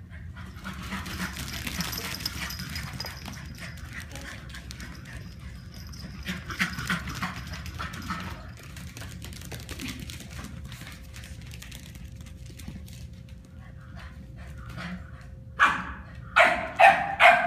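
Puppies at play, with scattered small scuffles and yips, then about four sharp, high barks in quick succession near the end.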